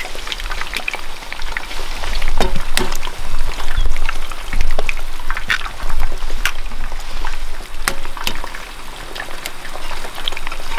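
Eggs frying in hot oil in a pan on a portable gas stove, a steady sizzle full of small pops and crackles, as more eggs are cracked into the pan.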